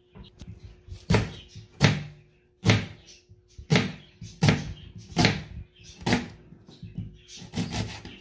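Kitchen knife chopping red onion on a plastic cutting board: about ten separate strokes, each a sharp knock of the blade onto the board, a little under one a second.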